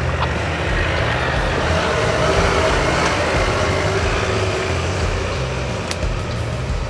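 A Holden Colorado 4WD ute's engine running as it drives slowly up a rutted dirt track.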